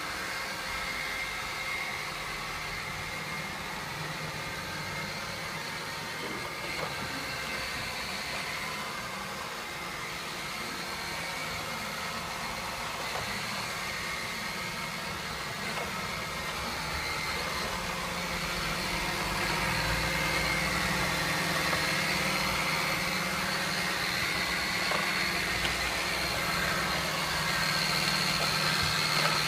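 Makita RC200DZ 18V cordless robot vacuum running: a steady whir of its suction motor and brushes with a thin high whine over it. It grows louder from about two-thirds in.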